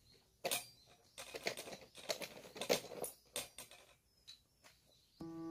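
Irregular light clicks and rustles as a wheeled chili-pepper-harvesting seat cart is handled on ground-cover mat. Piano music comes in just before the end.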